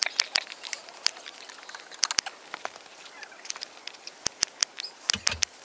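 Campfire burning, the wood crackling with irregular sharp pops and snaps.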